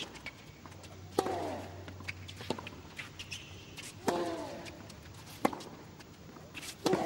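Tennis rally: sharp racket strikes on the ball about every one and a half seconds, alternating between the two ends, with one player giving a grunt on every other hit.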